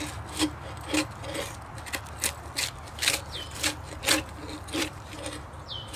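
Large fixed-blade knife, a Survive! Knives GSO-10, scraping bark off an oak log in rough repeated strokes, about two a second.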